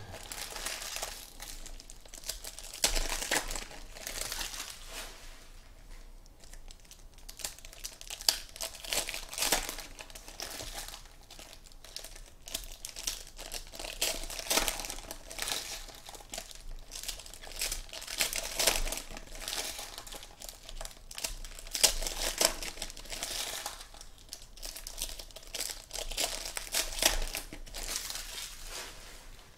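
Foil trading-card pack wrappers crinkling and tearing as they are ripped open by hand, in repeated irregular bursts.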